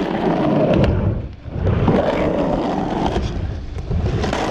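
Skateboard wheels rolling on a 3-foot mini ramp: a steady low rumble that drops away briefly about a second and a half in, then returns as the board rides the transition again, with a few sharp clacks.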